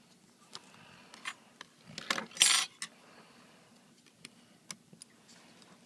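Small clicks and taps of hands and tools working on an opened iPad 2, with a brief louder clatter about two seconds in.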